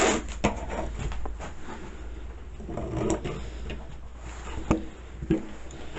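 Handling noise: scattered clicks and knocks of objects being moved and set down, with one sharp knock near the five-second mark, over a low steady hum.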